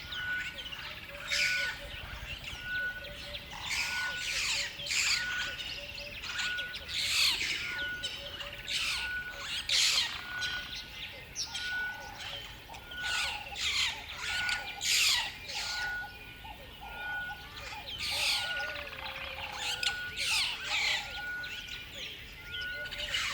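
Many wild birds chirping and calling at once in a busy, overlapping chorus of short chirps and trills. Through it, one short whistled note repeats evenly about every second and a quarter.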